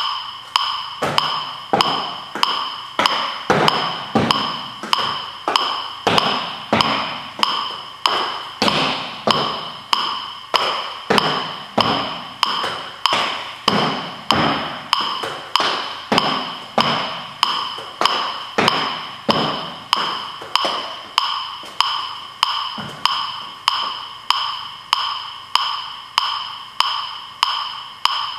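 Metronome ticking steadily at about one and a half beats a second, each tick ringing briefly, pacing a 3-minute step test. Feet thud on a low step platform along with the beat until about 23 s in, then the stepping stops and only the metronome goes on.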